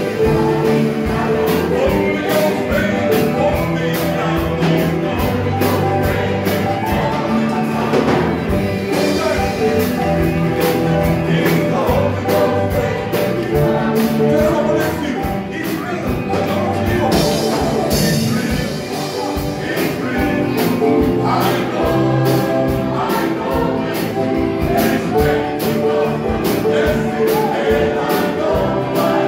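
Live gospel praise-and-worship music: several men singing through microphones over electric guitars, a drum kit and a keyboard, with a steady beat.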